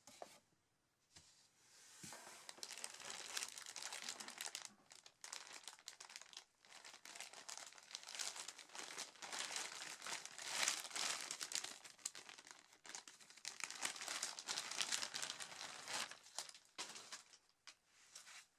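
Clear plastic poly bag crinkling and rustling while being handled, as a nylon waist pack is lifted out of a box and pulled out of the bag. It starts about two seconds in and goes on in uneven bursts, dying away near the end.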